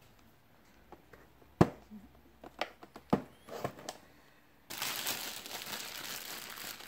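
A cardboard graphics card box being handled: a few sharp knocks and taps, then about two-thirds of the way in a sudden, steady crackling rustle of crinkling plastic wrap.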